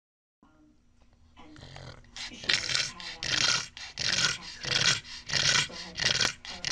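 A dog making a quick run of short sounds, about two a second, that builds in loudness over the first couple of seconds.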